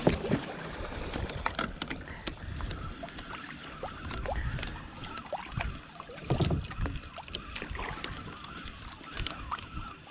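Sea water lapping and sloshing against a plastic sit-on-top kayak's hull, with small knocks and ticks and wind on the microphone; a louder burst of sloshing comes about six seconds in.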